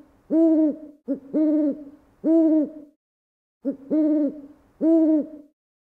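Great horned owl hooting: a short note followed by three longer hoots, each rising then dipping slightly in pitch, then a brief pause and the same phrase again.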